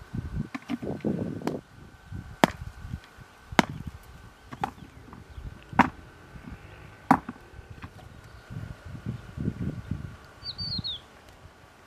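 An axe chopping into wood: five sharp strikes a little over a second apart, with rustling and shuffling of movement before and after them.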